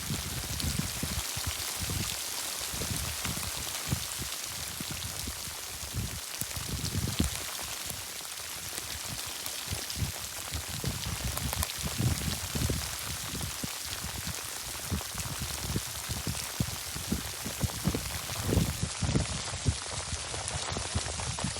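Hailstorm: hail and rain pelting down in a dense, steady hiss, with irregular low buffeting underneath.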